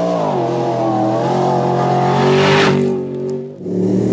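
Off-road race vehicle's engine running hard as it charges along a gravel track, its pitch dipping and then climbing and holding. A rush of tyre and gravel noise comes as it passes about two and a half seconds in. After a brief drop near the end, another vehicle's engine rises in pitch.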